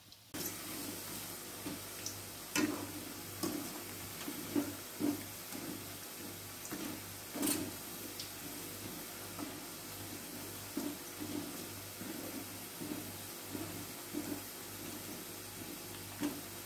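Batter-coated cauliflower pieces deep-frying in hot oil in an aluminium kadai: a steady sizzle with scattered crackles and pops.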